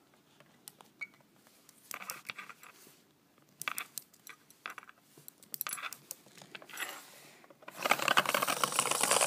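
A small wind-up toy: short spells of clicking as it is handled and wound, then from about eight seconds in its clockwork rattling steadily and loudly as it runs across a wooden floor.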